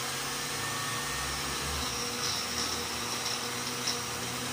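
Imarflex Multi-Blender's electric motor running steadily at speed, blending a liquid mixture of raw eggs, shrimp and spirulina.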